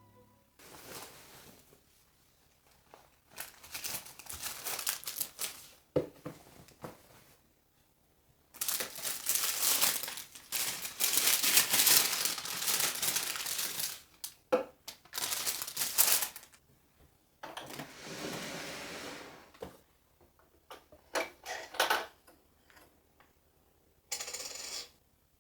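Small household objects being handled: scattered sharp clicks and clinks, with longer stretches of rustling or scraping noise, the longest from about a third of the way in to past halfway.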